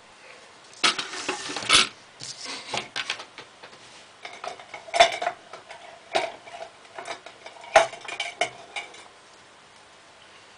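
Small hard objects such as scissors and pencils being handled and set down on a wooden table: an uneven string of clinks and knocks, loudest about a second, five seconds and eight seconds in.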